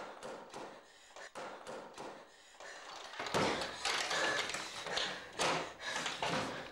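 Footsteps on a hard office floor, about three steps a second. About three seconds in they give way to louder knocks and rustling as an office door is opened.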